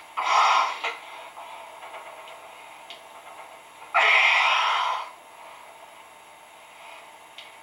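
Two loud, breathy bursts about four seconds apart, each about a second long, over a steady low hiss: hard exhalations of a lifter straining through heavy one-arm dumbbell curls.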